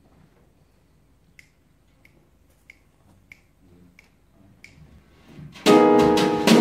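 Six evenly spaced finger snaps, a little under two a second, counting off the tempo; then near the end the jazz trio comes in together loudly on grand piano, double bass and drums.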